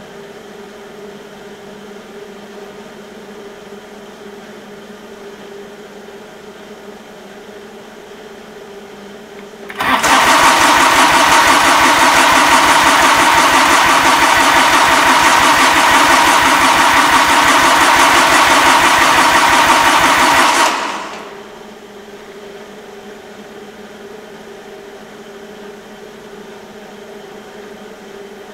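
Cold Kubota two-cylinder diesel in a Cub Cadet garden tractor cranking on its starter for about eleven seconds at well below freezing, in an even, rapid pulse that does not speed up. It starts about ten seconds in and winds down and stops: the engine does not catch.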